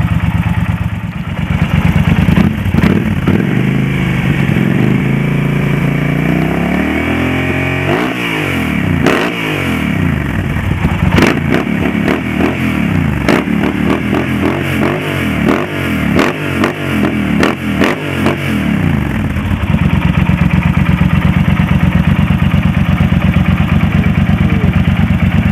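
Yamaha TDM 900's parallel-twin engine running through an aftermarket Creptus exhaust. It idles, is revved up slowly, then is blipped over and over for about ten seconds before settling back to a steady idle.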